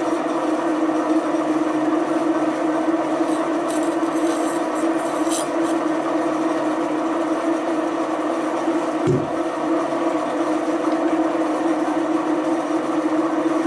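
Milling machine spindle running at its lowest speed with a slitting saw on the arbor: a steady mechanical hum with one strong constant tone. About nine seconds in the tone briefly dips in pitch.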